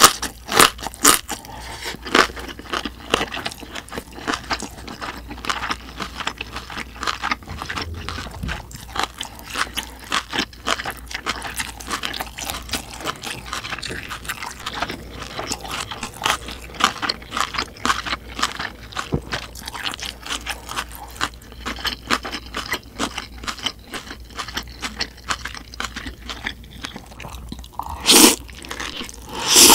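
Close-miked eating: wet chewing and crunching with many sharp little clicks throughout. Near the end come two loud slurps as bibim makguksu noodles are sucked into the mouth.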